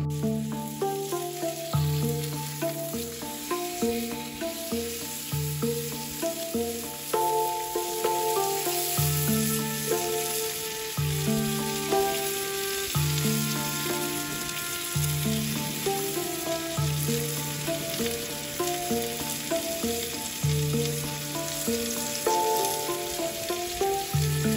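Beef steaks sizzling steadily in a skillet over a charcoal grill. Instrumental background music plays over it, with a deep bass note about every two seconds.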